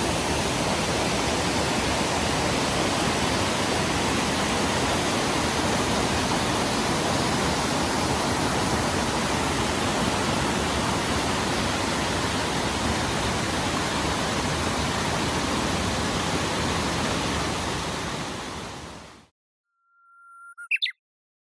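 Steady rain, an even hiss that fades out near the end. It is followed by a short rising chirp.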